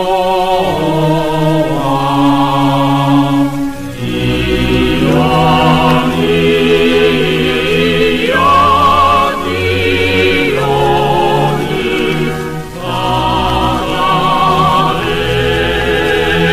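Choir singing a slow, solemn Japanese wartime anthem over low accompaniment, in long held notes with vibrato. The phrases are split by brief breaks about four and thirteen seconds in, and the recording is dull, with no high treble.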